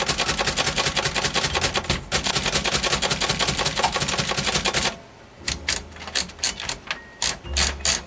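1937 Remington Rand Deluxe Noiseless manual typewriter being typed on: a fast, dense run of key strokes, briefly broken about two seconds in, then slower, separate strokes from about five seconds in.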